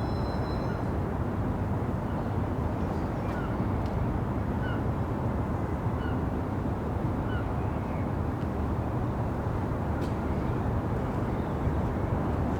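Steady hum of city traffic heard from a rooftop, with a bird giving short chirps about every second and a half through the middle. A thin high whistling tone fades out about a second in.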